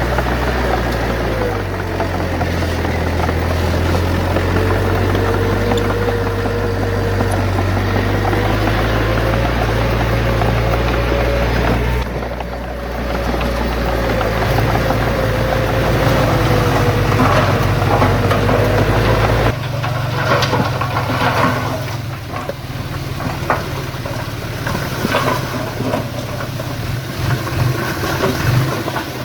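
Heavy diesel earth-moving machinery running steadily with a deep rumble, the sound changing abruptly twice; in the last third the rumble drops back and scattered knocks and clatter are heard.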